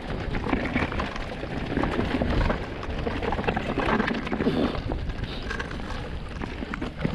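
Orbea Rise electric mountain bike rattling and knocking as it rides down over tree roots, with tyre and wind noise across the camera microphone.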